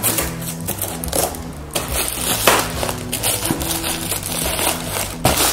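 Brown paper packing wrap crinkling and rustling in short crackles as it is pulled off a bike saddle, over steady background music.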